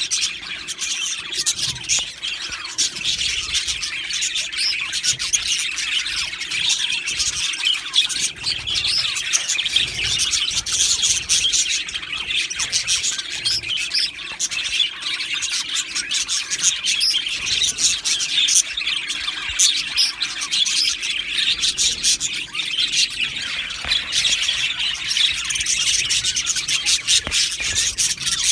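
A flock of budgerigars chirping and chattering continuously, many high, quick calls overlapping, with an occasional squawk.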